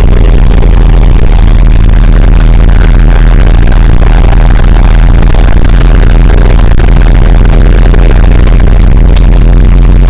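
Loud, steady low hum with harsh hiss that holds level and never changes, heavily overdriven, with one brief tick about nine seconds in.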